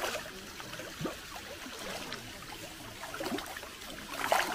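Running water trickling steadily, with a short, louder sound near the end.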